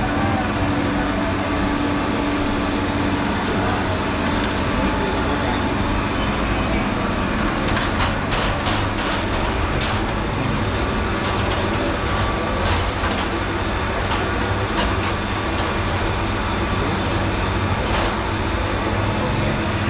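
Busy street ambience: steady traffic noise mixed with voices. A run of sharp clicks and clatters comes between about eight and thirteen seconds in.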